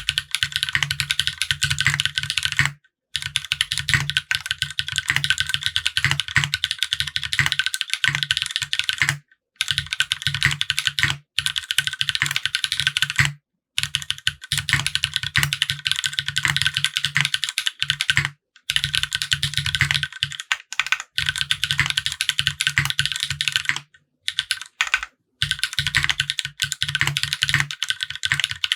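Fast typing on the Flash Prototype custom mechanical keyboard: lubed linear switches (Cherry Black housings with Kailh Red stems, Krytox 205g0) on an aluminium plate under GMK Serika keycaps, giving dense, quick keystroke clacks. The typing comes in runs of a few seconds with brief pauses between them.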